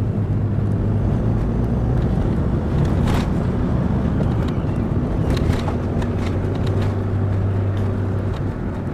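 A van driving along: steady engine drone and road noise, with a few light knocks.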